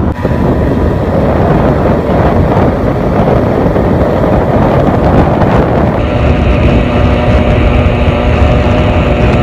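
Kinetic Luna moped's small two-stroke engine running at road speed close ahead, under heavy wind noise on the microphone, with a harsh, awful-sounding note. About six seconds in, a steady droning engine tone comes through more clearly.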